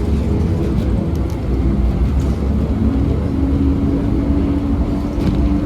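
Heritage tram running: a steady low rumble, with a motor whine that rises slightly in pitch about two seconds in and then holds steady.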